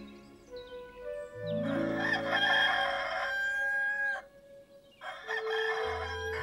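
A rooster crowing twice: a long cock-a-doodle-doo starting about a second and a half in, then a shorter crow near the end, over soft background music.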